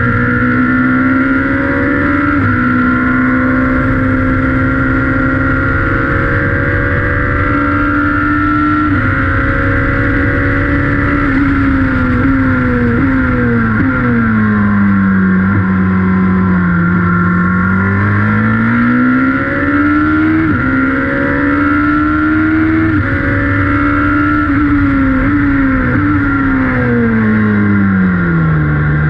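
A Radical sports-prototype race car's engine heard from its open cockpit at racing speed. The pitch steps up through gear changes, then falls in long sweeps as the car slows for corners, about halfway through and again near the end, before climbing again.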